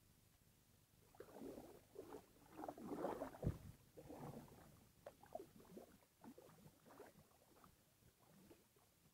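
Kayak paddle strokes: water splashing and dripping off the blade, loudest about three seconds in with one dull knock, then smaller drips and splashes.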